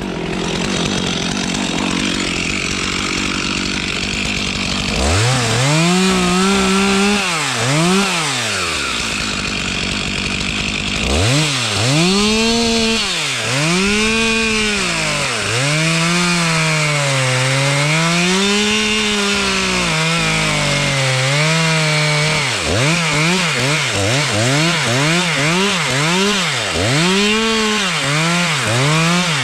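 Stihl chainsaw running, steady at first. After about five seconds it is revved up and down over and over, its pitch rising and falling with each squeeze and release of the throttle.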